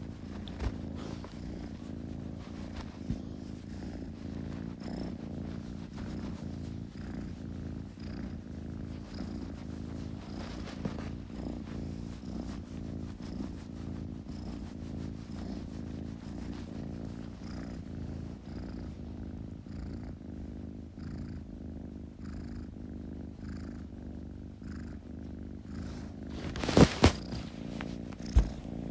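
A kitten purring steadily, a low continuous rumble. Near the end a few sharp knocks or clicks stand out louder than the purr.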